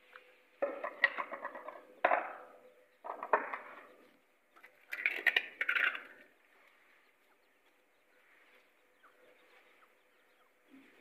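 Grey francolin calling: four loud, rattling bursts of call over about five seconds, starting just under a second in.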